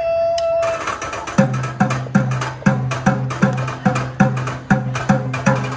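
Upbeat percussion music played on pots, pans and kitchen utensils: a held note, then quick sharp hits from about a second in, over a steady bass pulse.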